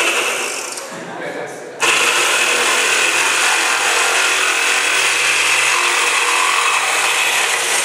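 Corded electric power tool running on a wooden board, its motor giving a steady high whine. It eases off about a second in, then starts again suddenly at full speed a little before two seconds and runs on.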